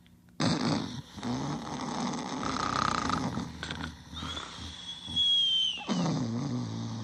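Cartoon snoring: a long, rasping in-snore, then a high steady whistle that dips slightly in pitch at the end, then a low rumbling snore.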